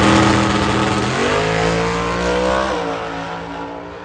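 Super Gas drag car's engine at full throttle as it launches and pulls away down the strip. The pitch climbs for over a second, then drops sharply about three seconds in at a gear change, and the sound fades as the car draws away.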